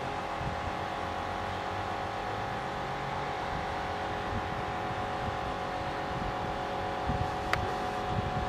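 Train approaching, hauled by BR Standard Class 7 'Britannia' Pacific steam locomotive 70013 Oliver Cromwell with Class 47 diesel 47 500 attached: a steady running drone with several held tones over a low rumble. A single sharp click about seven and a half seconds in.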